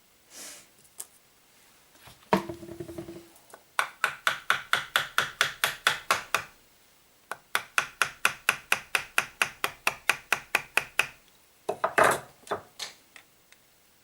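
Hand-tool work: a knock with a brief ringing tone, then two runs of quick, evenly spaced clicks, about five or six a second and each a few seconds long, and a clatter near the end.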